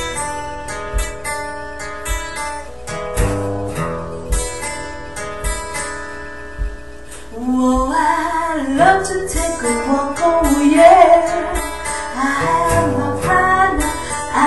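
Acoustic guitar picking and strumming chords, then a singing voice comes in over the guitar about halfway through, louder than the guitar.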